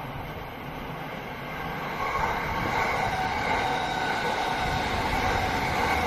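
JR East electric commuter trains passing on the multi-track line, a rumble of wheels on rail with steady high-pitched tones over it. It grows louder about two seconds in as a second train comes alongside.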